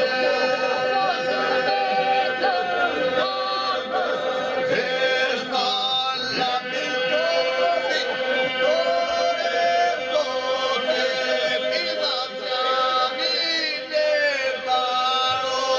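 Unaccompanied Lab Albanian polyphonic folk singing by a group of men and women: the group holds a steady drone while lead voices sing ornamented, gliding lines above it.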